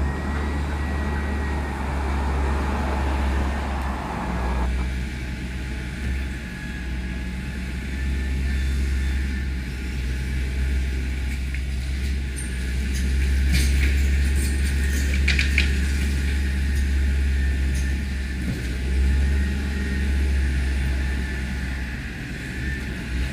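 Diesel engine of demolition heavy equipment running with a steady low drone while it tears into a building, with a spell of clattering and cracking debris about halfway through.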